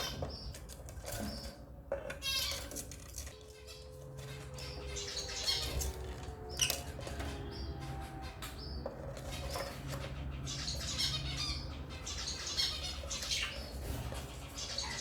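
African lovebirds chirping and squawking in quick, busy bursts, mixed with short rustling or wing-flapping sounds.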